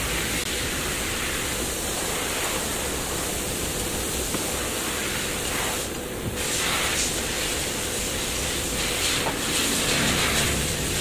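Steady rushing hiss of workshop background noise.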